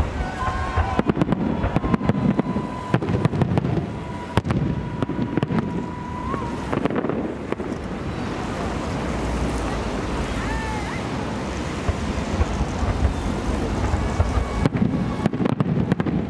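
Fireworks salute going off: a run of sharp bangs and crackles, easing for several seconds in the middle and starting again near the end, over steady wind rumble on the microphone.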